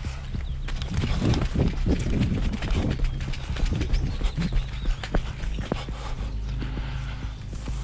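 Footsteps crunching through dry brush, twigs and leaves, an uneven run of crackling steps over a steady low hum.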